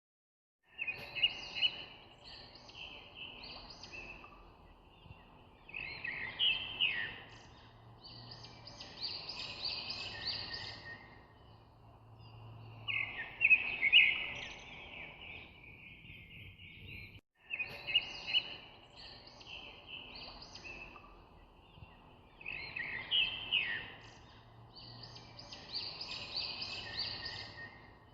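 Birds chirping and singing in short phrases over a faint low hum. The same stretch of birdsong starts over after about 17 seconds: a looped background recording.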